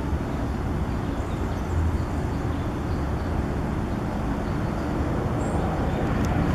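Outdoor ambience: a steady rumbling noise, heaviest in the low end, like wind on the microphone mixed with distant traffic.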